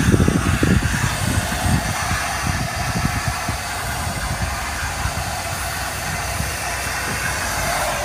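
Car wash vacuum running steadily through its hose, a continuous rushing suction noise, with low rumbling thumps in the first second or two and the rush growing a little fuller near the end.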